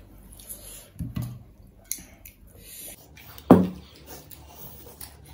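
Hands mixing and squishing rice on steel plates, with soft clinks of fingers and food against the metal. About three and a half seconds in comes one short, loud vocal burst from one of the eaters, falling in pitch.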